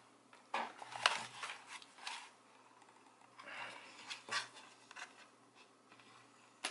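Handling noise from a small plastic 12 V car air compressor and its power cord: scattered light clicks, knocks and rustles as the cord and casing are turned over in the hands.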